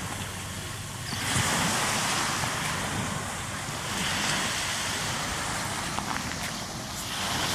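Wind and surf on an open beach in the gusty wind ahead of a hurricane: a steady rushing that swells about a second in and again about four seconds in.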